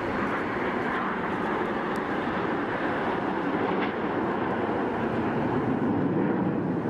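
Aircraft engine noise: a steady rushing sound that sits lower in pitch toward the end.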